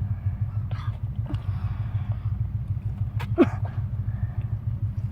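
Steady low rumble of a car, heard from inside the cabin, with a few faint clicks and one short squeak that falls in pitch about three and a half seconds in.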